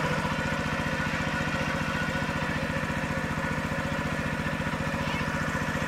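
Small engine of a water pump running steadily with a fast, even beat, pumping a fish pond down.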